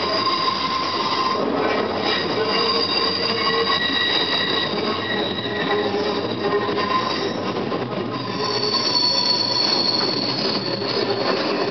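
LMS Stanier Black 5 4-6-0 steam locomotive moving slowly along the platform on arrival, with a high-pitched metallic squeal from its wheels. The squeal holds several shrill, wavering tones over steady running noise and grows stronger near the end.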